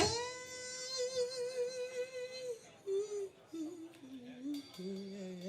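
A male blues singer hums or moans a wordless note softly, held with vibrato for about two and a half seconds. He follows it with a few shorter notes that step downward.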